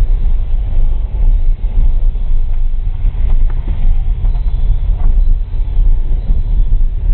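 Car driving along a rough dirt track, heard from inside the cabin: a loud, steady low rumble of engine and tyres, with a few small knocks and rattles around the middle.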